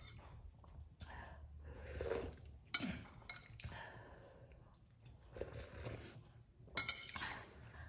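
Someone eating instant noodles in broth, sipping from a spoon and chewing, with a metal spoon and fork clinking against a ceramic plate several times.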